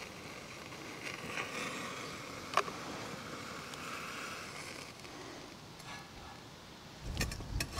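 Faint outdoor hiss of wind with a single sharp click about two and a half seconds in, then a few knocks and clicks near the end.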